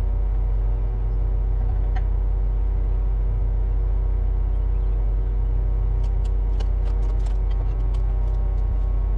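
Kubota KX61-2a mini excavator's diesel engine running steadily. From about six seconds in, a series of sharp clicks and cracks sounds over the engine.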